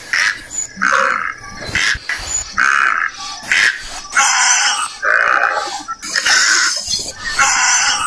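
A rapid series of short, harsh animal calls, roughly one or two a second, some overlapping.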